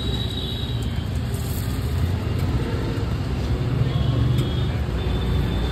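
Steady low rumble of road traffic, with a faint high tone briefly at the start and again near the end.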